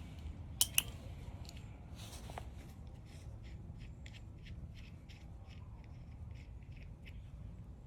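Two sharp clicks about a second in, then a run of faint, light ticks, about four a second, from small parts being handled and fitted by hand, over a low steady hum.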